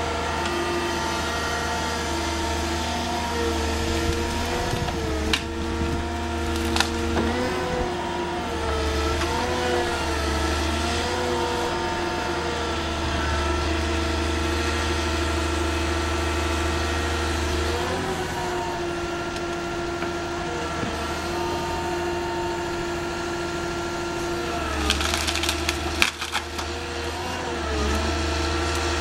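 Carrier machine's diesel engine and hydraulics running steadily, the pitch dipping and recovering several times as the shear gripper's hydraulics take load. Wood cracks a few times, with a burst of cracking and splintering near the end.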